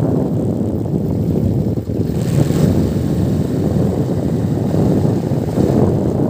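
Motorcycle on the move, recorded on a phone: steady wind rumble on the microphone over the engine and road noise, with a short hiss about two seconds in.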